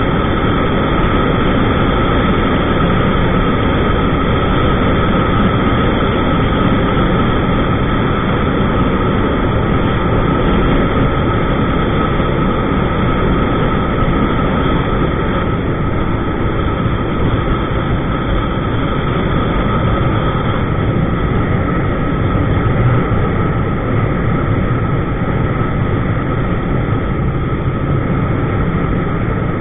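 A 2000 Suzuki SV650 motorcycle at a steady cruise: its V-twin engine running under a steady rush of wind and road noise on the bike-mounted microphone, with a thin steady tone running through it.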